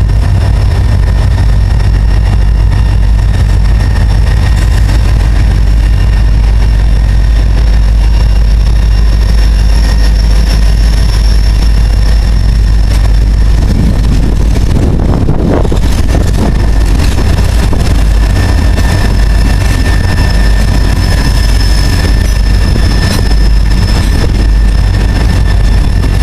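Diesel freight locomotives running with a steady low rumble that swells briefly about halfway through.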